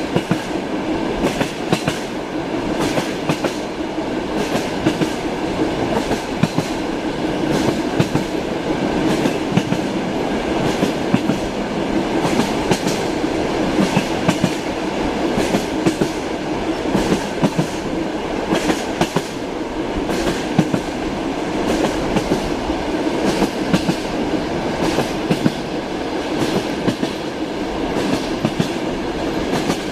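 Train wheels clattering over rail joints with a steady rumble, the kind heard inside a moving passenger carriage. Short knocks recur irregularly throughout.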